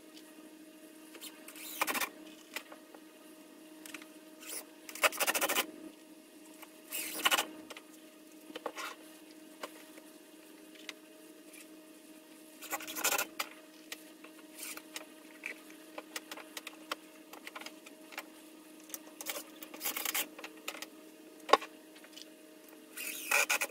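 Cordless drill driving screws into wooden boards in about six short bursts, with small knocks and clicks of the boards being handled between them, over a steady low hum.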